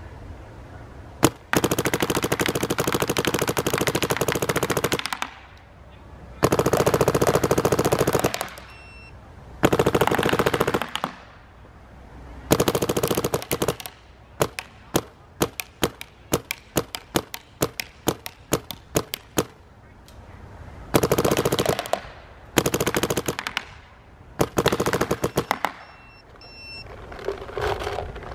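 Dye M2 MOS Air electronic paintball marker firing in semi-auto: a single shot, then several long strings of rapid shots, a stretch of separate shots a few a second, and more rapid strings. It is shooting cold, brittle paint without breaking any in the barrel.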